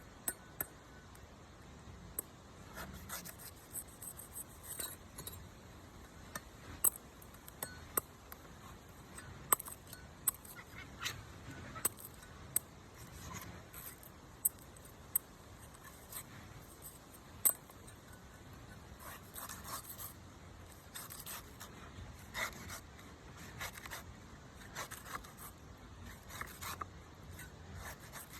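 A knife scraping and cutting at a coconut: irregular sharp clicks and ticks mixed with short bursts of scraping.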